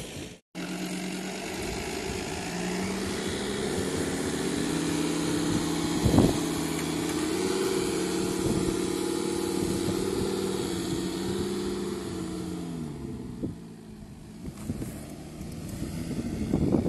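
Volkswagen Touareg SUV's engine pulling under load as it crawls through loose sand and up a sandy mound. Its pitch rises a little, holds steady, then falls away about three-quarters of the way through. There is a single thump about six seconds in.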